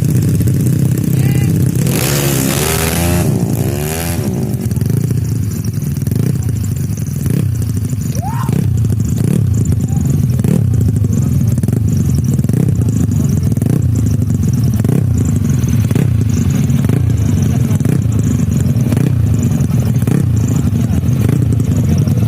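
Tuned Yamaha Mio scooter engines. One revs hard and passes loudly about two seconds in, over steady motorbike engine noise with brief revs.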